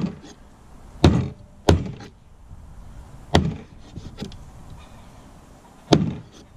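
Meat cleaver chopping down through a chicken foot onto a wooden cutting board, five sharp chops at uneven intervals, cutting off the toe tips and nails.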